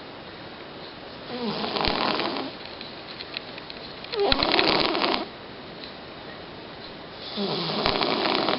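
Domestic cat snoring loudly in its sleep: three snores about three seconds apart, each lasting about a second.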